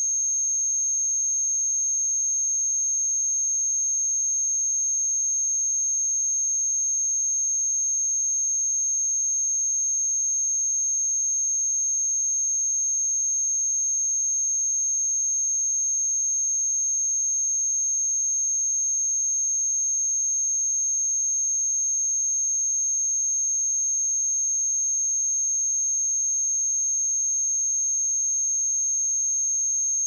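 A steady, high-pitched pure sine-wave test tone at 6426 Hz, one unchanging pitch held at constant loudness.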